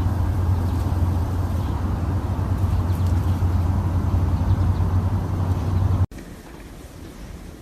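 Steady, loud low rumble that cuts off abruptly about six seconds in, leaving a much quieter background.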